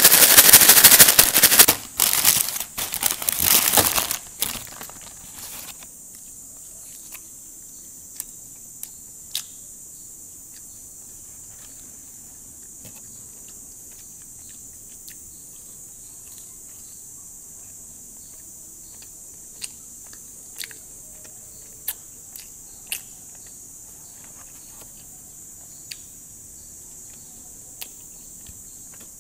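A paper bag of McDonald's Shake Shake Fries being shaken hard to coat the fries in seasoning: a loud rustling crinkle that stops about four seconds in. After that there are only faint scattered ticks over a steady high hiss.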